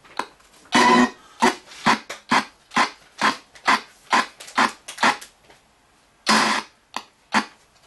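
RTC ghost box scanning through radio, putting out a rapid chop of short fragments of broadcast sound, about two to three a second. There is a short lull about five seconds in, then one longer burst.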